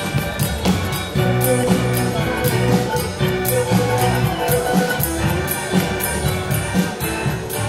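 Live contra dance band playing a dance tune with a steady beat of about two a second.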